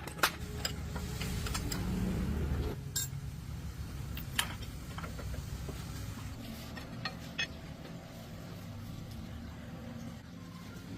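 Metal parts and tools clinking in a few sharp, separate knocks over a steady low hum that is louder for the first few seconds.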